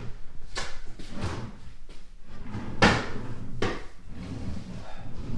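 Several short, sharp knocks a little under a second apart, the loudest about three seconds in.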